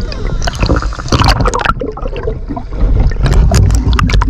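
Sea water sloshing and gurgling around a camera just under the surface beside a boat, with irregular sharp splashes and clicks. A heavy low rumble of water moving against the camera grows louder about three seconds in, as the camera comes up level with the waterline.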